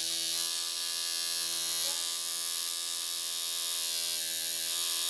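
Tattoo machine buzzing steadily as it runs, an even electric drone with a hiss above it.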